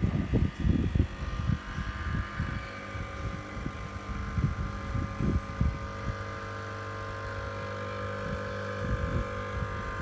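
Espresso machine pump humming steadily while a shot pours, starting about a second in. Cups clatter and knock against the metal drip tray at the start.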